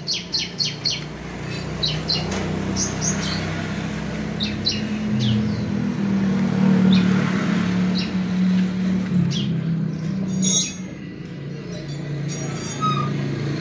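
A steady engine hum runs throughout, with short bird chirps over the first few seconds.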